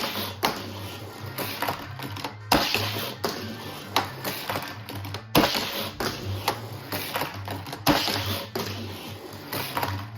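Background music with a steady pulsing beat, over sharp clacks and rattles of a die-cast toy car on a plastic Hot Wheels track.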